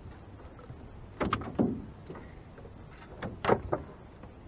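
A few knocks and thumps in a small boat in two clusters, about a second in and again about three seconds in, while a large blue catfish hanging from a fish gripper is handled and lowered to the deck.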